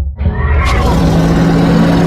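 Designed kraken creature sound effect: a deep, steady rumbling roar that swells in with a rush of noise about a quarter second in.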